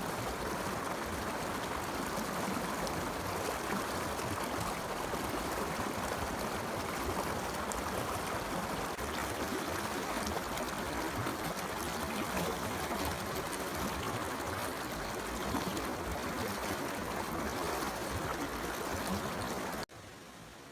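Forest stream running, a steady rush of flowing water. It cuts off abruptly near the end, leaving a much quieter hiss.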